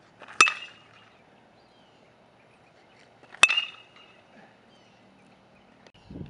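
Metal baseball bat hitting a pitched ball twice, about three seconds apart, each contact a sharp ping with a short ring.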